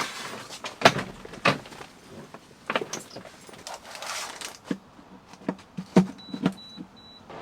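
Scattered clicks, knocks and rustling of gear being handled, followed near the end by three short high-pitched electronic beeps.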